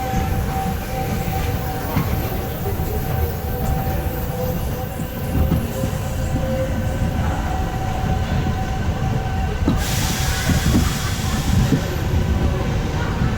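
Amusement-park ride train rolling on its track: a steady low rumble and rattle with a constant hum over it. About ten seconds in, a hiss lasts for about two seconds.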